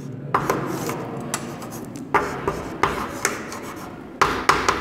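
Chalk writing and drawing on a blackboard: scratchy strokes broken by several sharp taps as the chalk strikes the board, with a quick cluster of taps near the end.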